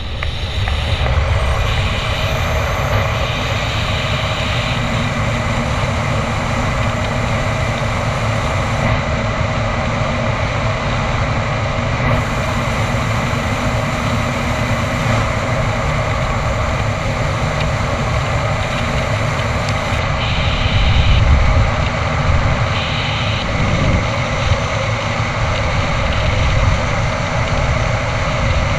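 Rushing air of a wingsuit flight buffeting the GoPro's microphone: a loud, steady, deep wind roar that holds throughout, swelling slightly about two-thirds of the way in.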